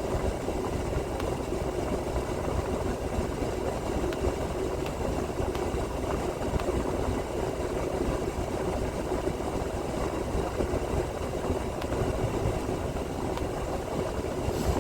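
Freightliner Cascadia semi truck idling with a steady low rumble and hum, heard from inside the cab.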